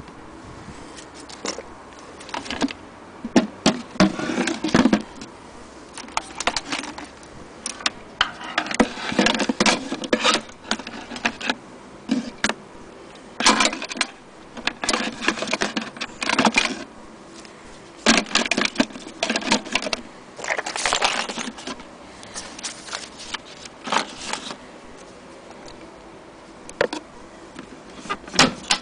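Irregular clicks, knocks and rattles of a Singer Featherweight 221 sewing machine being packed into its carrying case, with the power cord and the case lid handled.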